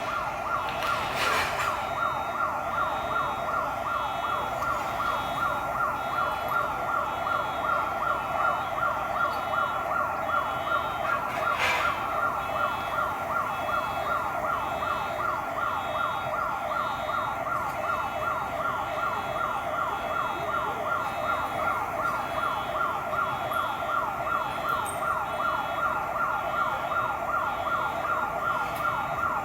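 Emergency vehicle siren sounding continuously in a fast, repeating up-and-down yelp, with a couple of brief clicks.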